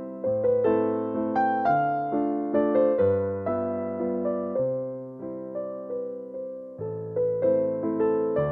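Background piano music: a slow, gentle melody of struck notes, each fading away, over lower notes.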